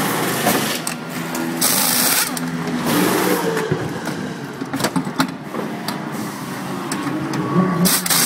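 Pneumatic wheel guns rattling in short bursts during a race car's tyre change, with a loud burst of hiss about two seconds in and another near the end. An engine hums underneath, its pitch wandering.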